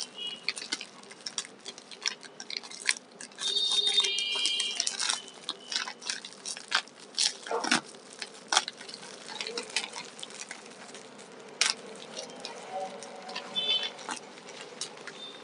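Bubble wrap and a paper mailer being handled and pulled open, giving a steady run of crinkling and crackling, loudest about four seconds in.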